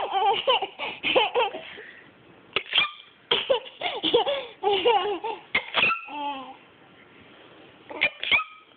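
Bursts of high-pitched laughter, broken by a few short, sharp sneezes that come in quick pairs.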